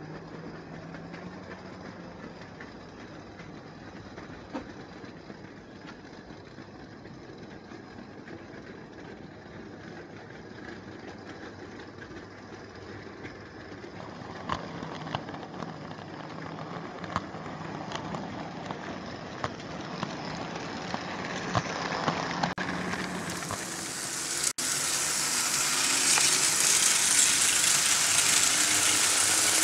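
Märklin H0 model train running on metal M-track: a steady whirr of motor and rolling wheels that grows louder about halfway through, with scattered sharp clicks over track joints and points. Near the end it gives way to a louder, hiss-like rumble of trains running on the layout.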